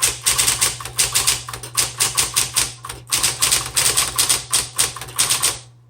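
Smith Corona Electra 120 electric typewriter being typed on at a steady pace, about four or five sharp key strikes a second, with the machine's motor humming steadily underneath. The typing stops just before the end.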